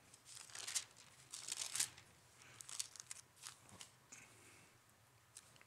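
Faint, scattered rustles of thin Bible pages being turned to find a passage.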